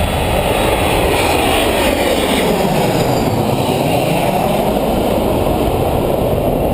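Jet airliner on final approach passing low overhead: a loud, steady rumble of jet engine noise.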